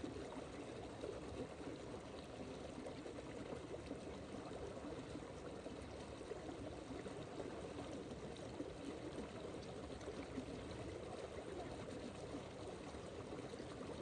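Steady rush of running water, even and unbroken.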